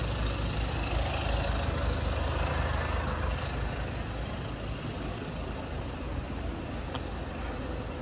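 A motor vehicle passing on a city street: a low engine and tyre rumble, loudest in the first three seconds, then easing to steady traffic noise.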